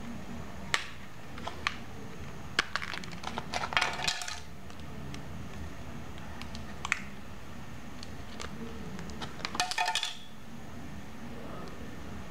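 Clicks and rattles of a W999 flip phone's back cover and battery being pried off and handled: single sharp clicks now and then, with a flurry of clicking and rattling about three seconds in and another toward the end.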